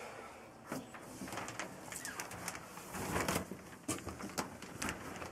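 Heavy 6-mil plastic sheeting crinkling and rustling as a person pushes through a zippered containment doorway, with scattered crackles and a louder stretch about three seconds in.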